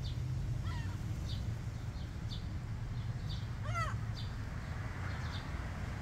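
Gull calls: a short call about a second in and a louder one near four seconds in, over a faint high chirp repeating about once a second and a steady low rumble.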